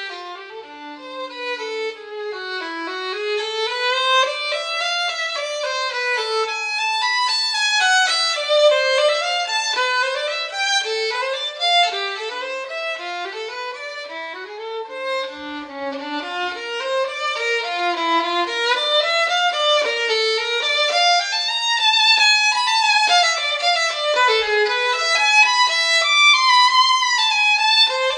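Background music: a solo violin playing fast running passages that climb and fall continuously, with no accompaniment.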